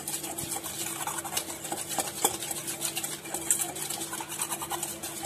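A metal spoon stirring and mashing a thick spice and gram-flour paste in an enamel bowl, with quick irregular scrapes and clicks against the bowl. A faint steady hum runs underneath.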